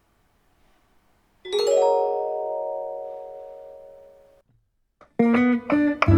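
Opening music with a plucked-string sound: a single chord rings out and fades away, then quickly picked notes start about five seconds in.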